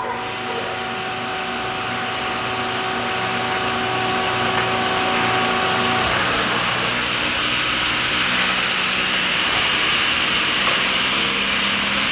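Taylor 8-section rotary door clamp's drive running as the clamp sections rotate forward under the foot pedal. A steady mechanical hum with a hiss that slowly grows louder, and its steady tones change about six seconds in.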